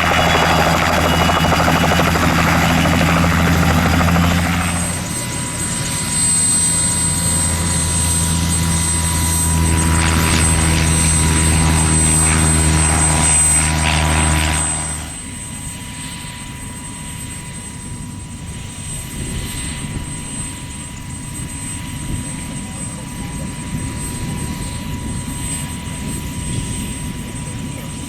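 A light aircraft runs close by with a steady low drone, joined about five seconds in by a thin high whine. About halfway through it drops away abruptly, leaving a fainter, noisier rumble.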